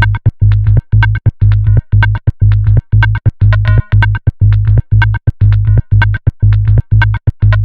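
Electronic music: a synthesizer loop over a heavy bass beat that cuts in and out in a fast, choppy rhythm, with short high stabs on top.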